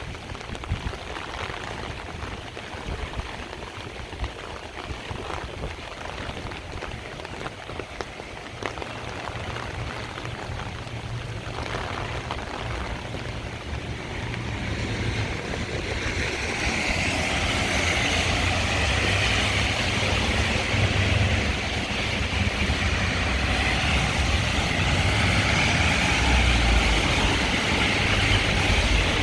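Heavy rain on a city street with road traffic, tyres hissing on the wet road under a low rumble. The rush swells about halfway through and stays loud and steady.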